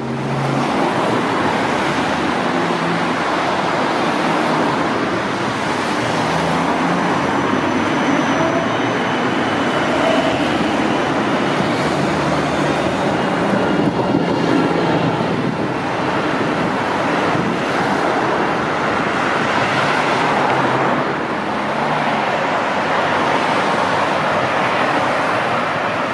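Siemens Combino Supra NF12B low-floor tram passing close, with steady road traffic around it.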